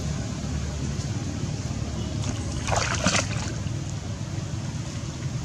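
Water splashed by swimming macaques: one short splash about three seconds in, over a steady low rumble.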